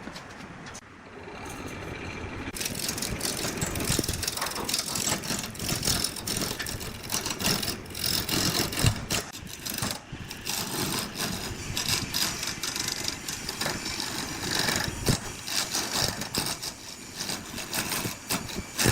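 Engine-driven homemade chainsaw rig starting up about two seconds in, then running with a dense rattling noise.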